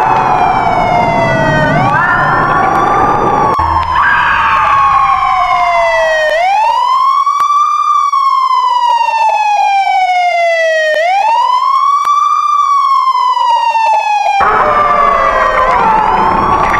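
Siren wailing: its pitch rises quickly, then slides slowly down, over and over, about every four and a half seconds. At the start and again near the end other overlapping siren tones and a low rumble join it.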